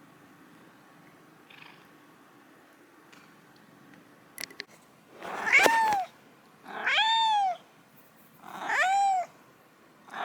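Domestic cat meowing three times, starting about five seconds in; each meow lasts under a second and rises then falls in pitch.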